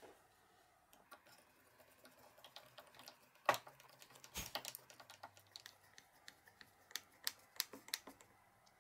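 Faint, irregular clicks and taps of hands handling the ball-bearing blade guides of a jigsaw jig and the steel blade between them. A sharper click comes about three and a half seconds in. A quick run of clicks near the end comes as a screwdriver works on a bearing's screw.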